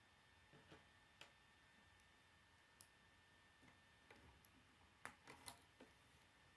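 Faint, irregular clicks and snaps of plastic K'nex rods and connectors being pushed and fitted together by hand, with the loudest cluster of clicks about five seconds in.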